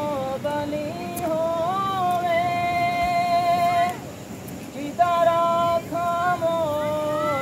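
A single voice singing a devotional melody in long, drawn-out notes with wavering ornaments, breaking off briefly about four seconds in and then resuming.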